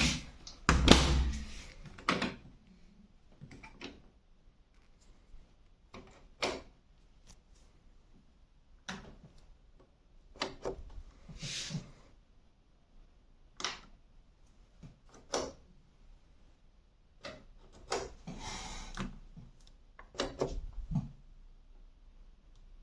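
Electrolux EW1077F washing machine being handled: a heavy thump about a second in, then scattered knocks and clicks every second or two, like its door or detergent drawer being worked.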